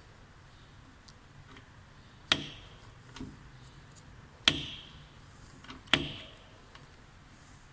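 Three sharp metallic knocks, each ringing briefly, with a fainter knock between the first two, as the turbine side of a removed VW Touareg 3.0 TDI (BKS) turbocharger is handled and its turbine wheel is worked by hand. The turbo's exhaust side is broken.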